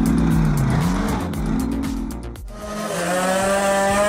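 Truck diesel engine labouring, its pitch rising and falling over a heavy low rumble. About two and a half seconds in it cuts away to a chainsaw running at a steady high speed.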